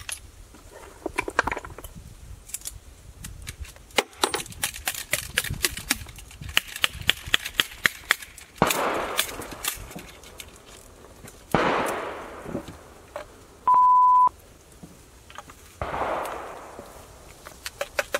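An original Habsburg flintlock Jäger rifle (Jägerstutzen) being muzzle-loaded: a run of quick metallic clicks and taps, then several sudden scraping strokes that trail off, as the ball is rammed down the barrel with the ramrod. A short steady beep sounds about three-quarters of the way through.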